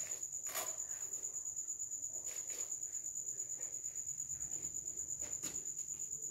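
Cricket chirping: a steady high-pitched trill with a fast, even pulse. A few faint clicks and rustles from school shoes being handled and put on.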